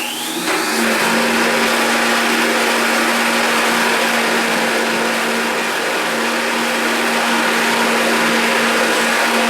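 High-speed countertop blender running, speeding up in the first half second and then holding a steady high whine as it purées a thick cashew and coconut cream sauce.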